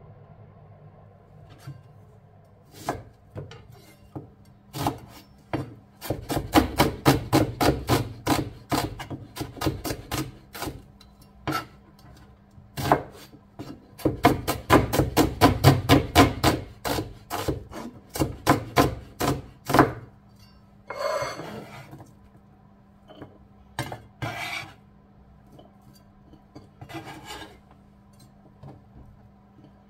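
Kitchen knife chopping on a wooden cutting board in quick runs of about four strokes a second, with pauses and a few single cuts between runs. Near the end come a few longer scraping sounds.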